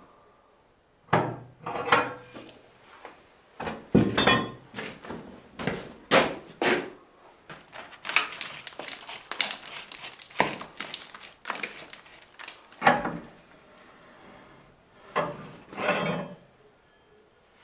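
Irregular knocks, clinks and scraping of flat stones being handled and pushed into the gap between a dry-stone wall and a wooden beam, in a small stone room.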